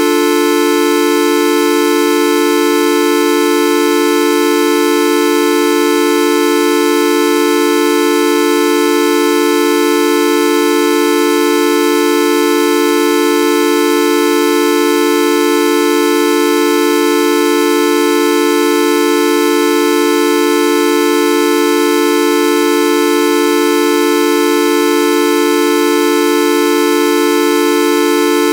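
Videoup V1.2 sound effect: a loud, unbroken horn-like tone, several pitches held together, unchanging throughout.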